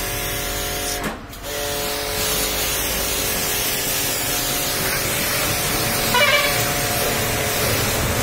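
High-pressure washer jet spraying water onto a car's body: a steady hiss over the hum of the washer's pump. Both cut out briefly about a second in, then start again.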